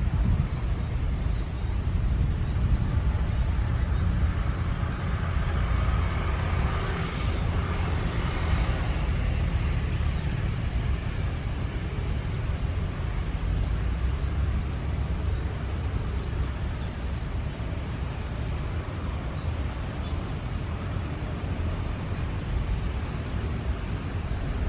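Airliner jet engines at takeoff power, heard from the runway side as a steady low rumble that swells briefly about seven to nine seconds in.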